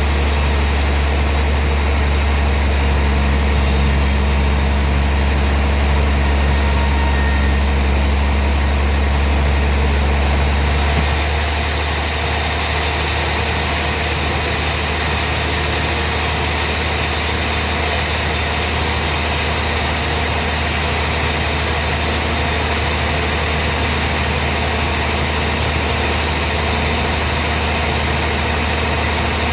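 Sawmill machinery running steadily with a deep hum; about eleven seconds in the hum shifts in pitch and eases slightly.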